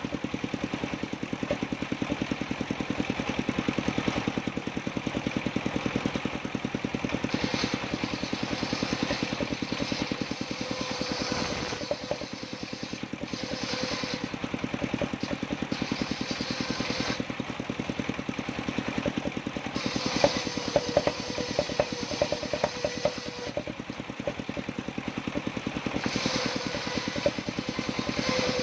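Engine of a mobile circular sawmill running steadily with a fast, even beat, while the saw blade cutting jowar timber adds a hissing, higher noise that comes and goes in several stretches. A cluster of sharp knocks sounds about two-thirds of the way in.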